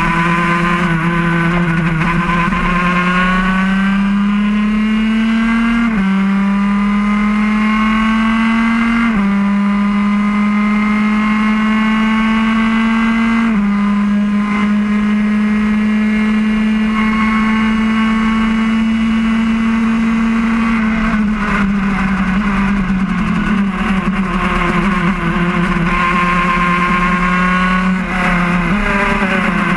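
Onboard sound of a road-racing kart's engine at full speed, its pitch climbing and stepping down suddenly three times in the first half. It then holds steady before falling away for several seconds.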